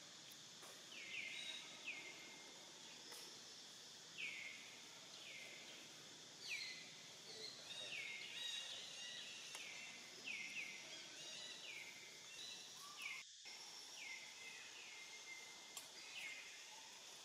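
Faint forest ambience: a bird repeating a short falling call about once a second over a steady insect hiss.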